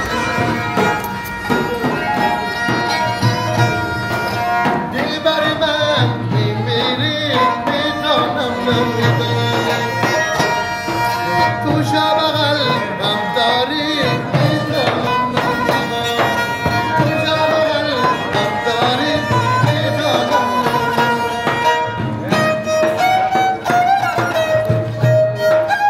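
Afghan folk tune played live on a ghichak, a bowed spike fiddle, its gliding melody accompanied by a frame drum beating along.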